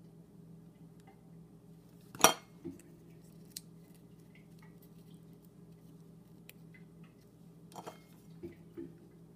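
A single sharp knock about two seconds in, a hot glue gun set down on a hard countertop, followed by a few lighter clicks and clacks of handling near the end. A faint steady hum runs underneath.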